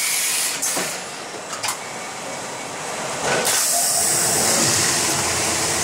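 Fabric-roll plastic-wrapping machine running with a loud hiss of air. The hiss cuts out about half a second in, leaving quieter machine running with a couple of clicks, and comes back strongly about three and a half seconds in.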